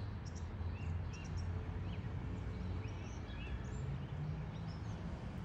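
Gray catbird singing: a loose string of short, varied squeaky notes and whistles, over a steady low rumble.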